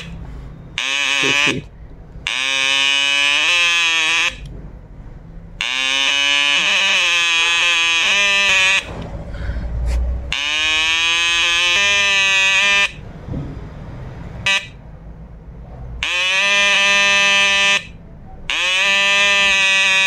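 Loudspeaker driven by a 555-timer oscillator giving a harsh, buzzy square-wave alarm tone. It sounds in six separate stretches of one to three seconds, each sliding up in pitch as it starts. The alarm switches on and off as smoke drifts between the LED and the phototransistor and blocks the light.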